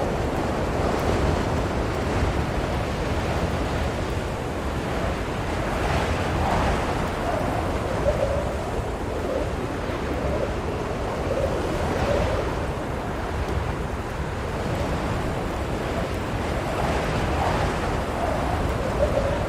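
Strong blizzard wind blowing steadily, a continuous rushing noise that swells gently, with a faint wavering howl in it.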